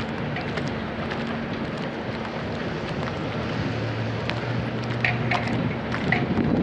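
Doosan DX160W wheeled excavator's diesel engine running steadily as it works, with a few sharp clinks about five seconds in.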